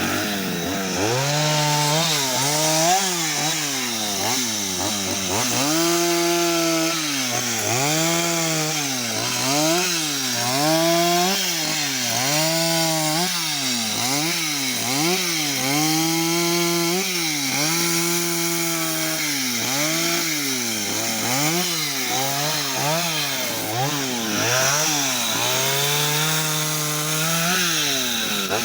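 Chainsaw carving wood, its engine revving up and down over and over: held at high speed for a second or two, then dropping briefly before the next cut.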